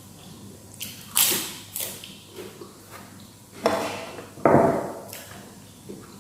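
Close-miked eating sounds: several short crunches and clatters of eating, loudest about a second in and again around four seconds.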